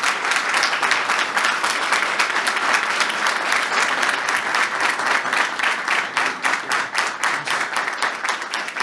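Audience applause: dense, steady clapping from a roomful of people, with the men at the head table clapping too.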